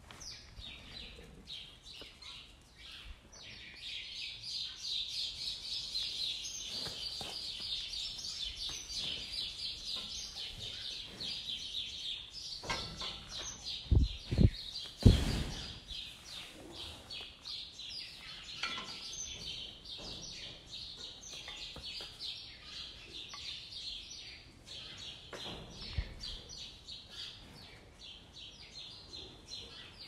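Many small birds chirping in a dense, steady chorus. A few loud, low thumps come about halfway through, and a lighter one near the end.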